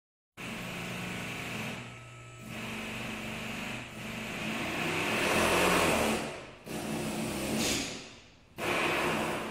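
Small two-stroke engine of a Cub Cadet CC223D hedge trimmer running, starting abruptly about half a second in, its level swelling and falling with several short dips as the carburetor is adjusted with a screwdriver.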